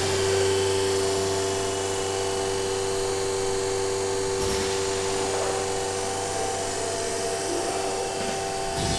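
Format4 profit H22 CNC machining centre running, a steady whine over a low hum and a broad hiss, with a brief rise in the hiss about halfway through.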